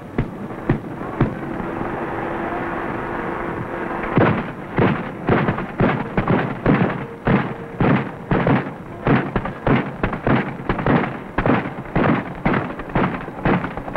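Twin 40 mm guns of an M42 Duster self-propelled anti-aircraft gun firing: a few shots, a steady hum for a couple of seconds, then sustained rapid fire of about three sharp reports a second.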